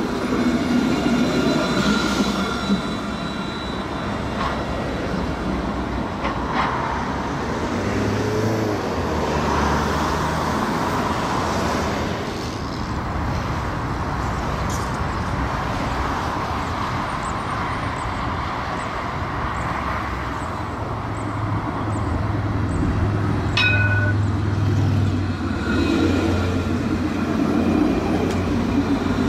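Electric street tram running past on its rails with its rolling noise and motor hum, road traffic alongside. It is louder as a tram passes at the start and again as the next one draws near and goes by in the last third. A brief sharp click with a short high tone comes a few seconds before the end.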